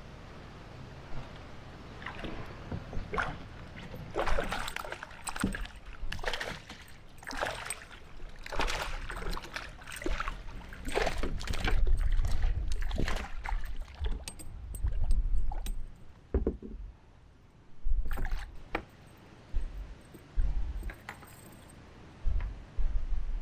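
A hooked smallmouth bass splashing and thrashing at the surface and in a landing net beside a kayak, with dull bumps of the net and fish against the hull. Later come a few light metallic clicks and rattles as pliers work the Mepps spinner's hook free.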